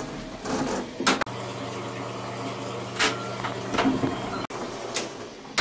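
A steady low electric hum inside a stopped train's toilet compartment, with a few clicks and knocks. The hum starts about a second in and stops abruptly about a second before the end.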